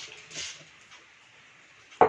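Dry pumpkin seeds poured into a container: a short hissing rattle about half a second in, then quiet room tone.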